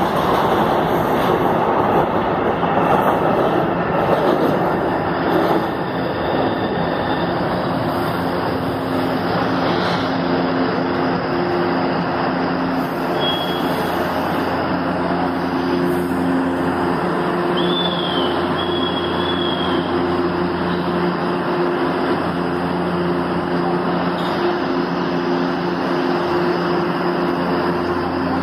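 Metro train noise: a train running past gives a loud rushing rumble for the first few seconds. Then a São Paulo Metrô train standing at the platform hums steadily with several held low tones, and a few short high chirps come around the middle.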